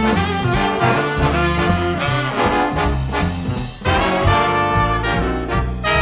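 Background swing-style music with brass over a stepping bass line and a steady beat.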